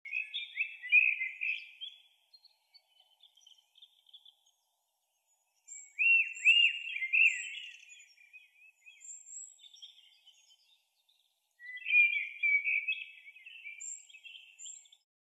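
A songbird singing: three bursts of quick, arching chirps and warbles about six seconds apart, with faint thin high notes in between.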